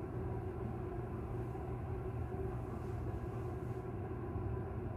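Steady low background rumble of room noise, with no distinct sound standing out.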